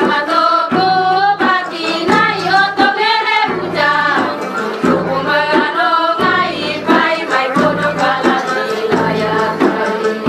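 A song sung in Indonesian over instrumental accompaniment with a steady beat, the music for a line dance; the sung line wavers with vibrato.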